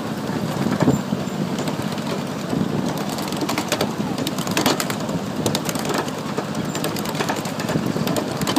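Ride-on miniature railway train rolling along the track: a steady rumble of small steel wheels on the rails, with irregular clicks and clacks throughout.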